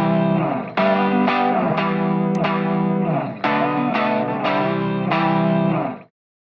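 Background music led by an electric guitar with distortion, chords struck in a steady rhythm; it stops abruptly about six seconds in, then silence.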